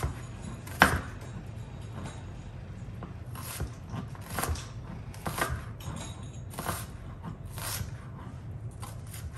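Chef's knife chopping through an onion and knocking on a plastic cutting board in uneven strokes, about one a second, the loudest stroke about a second in.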